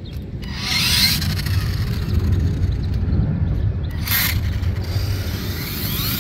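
Electric drive motor of a radio-controlled toy tow truck whining, rising and falling in pitch as it accelerates across plastic court tiles, over a steady low rumble. Short hissing bursts come about half a second in and again about four seconds in.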